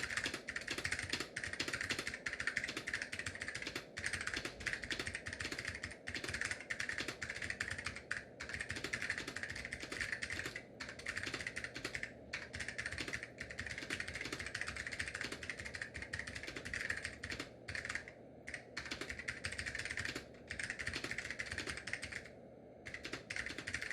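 Fast, continuous typing on an Ortek MCK-101FX keyboard with SKBM simplified white Alps switches: a dense stream of key strikes broken by short pauses now and then, the longest near the end.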